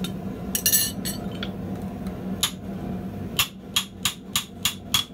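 Hammer blows on a steel drift, driving it into a red-hot section of heavy pipe to stretch it open. A couple of scattered strikes, then a run of about six quick blows, roughly three a second, in the second half, each with a short metallic ring.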